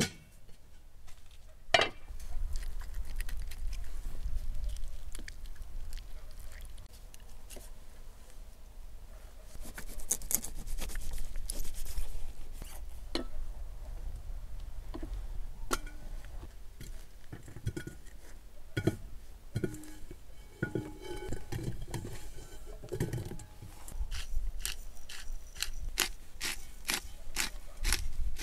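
Knocks, clinks and scrapes of a large metal cooking pot and its lid being handled and filled with food, over a low rumble. Near the end a pepper grinder clicks rapidly.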